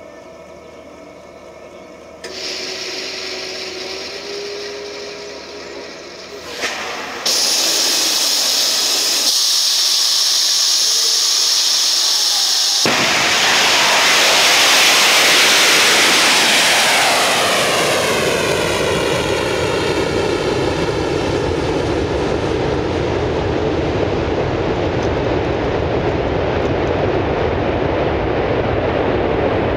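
Rocket launch heard from right beside the pad: hissing starts about two seconds in and grows louder about seven seconds in. About thirteen seconds in, the MOMO sounding rocket's liquid-oxygen/ethanol engine breaks into a full, deep roar as the rocket lifts off. The roar sweeps and phases as the rocket climbs away, then settles to a steady roar.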